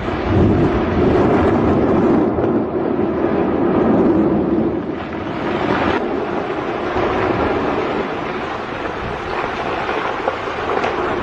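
Continuous rumbling roar of the Ruang volcano erupting, loud and steady with no separate blasts.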